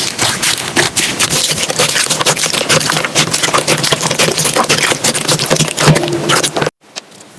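Slime being squished and worked, a dense run of small crackling pops and clicks that stops abruptly near the end.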